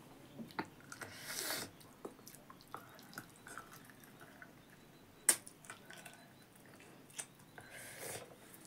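A person chewing a mouthful of rice and buffalo meat, with wet smacking mouth clicks and one sharp smack about five seconds in. Two short breathy rushes come through, about a second in and near the end.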